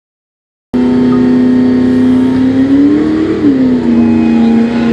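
Ford SVT Lightning pickup's Whipple-supercharged V8 at full throttle, cutting in abruptly under a second in. Its pitch climbs, drops sharply at an upshift about three and a half seconds in, then holds steady.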